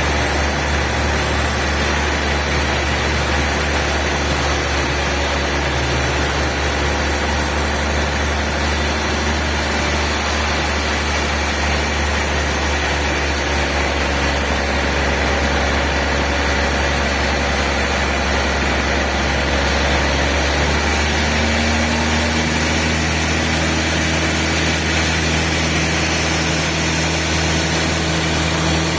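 Sawmill machinery running with a steady, even drone and no distinct knocks or strikes; the low hum shifts slightly about two-thirds of the way through.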